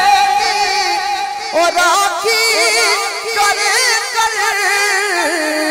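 A man sings a Punjabi Sufi kalam into a microphone, drawing out long, ornamented notes that waver and glide, over musical accompaniment. Near the end he holds one note steady.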